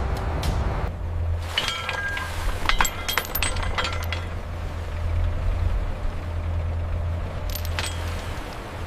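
Steady low mechanical hum with two flurries of light metallic clinks and taps, a longer one in the first half and a short one near the end.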